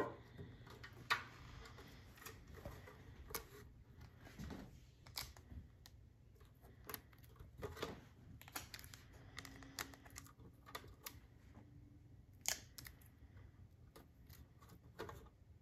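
Small plastic aquarium tank and tape being handled, with faint, irregular clicks and taps as a background insert is taped to its back.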